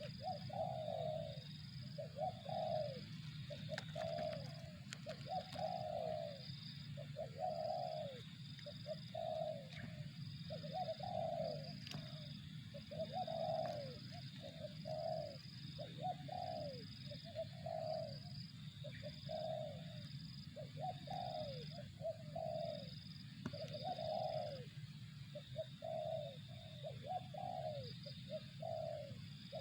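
Spotted dove (tekukur) cooing over and over, short falling coo phrases following each other about once a second, over a steady low hum.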